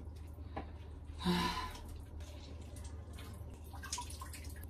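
Soft wet handling noises and light drips as blanched, water-soaked cabbage leaves are peeled apart over a bowl. A short vocal sound comes about a second in.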